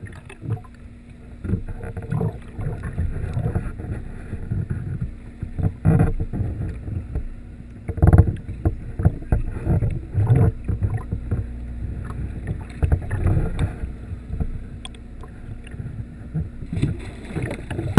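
Muffled underwater sound from a camera held just below the surface in a waterproof housing: a low rumble of moving water with irregular dull knocks, the strongest about eight seconds in.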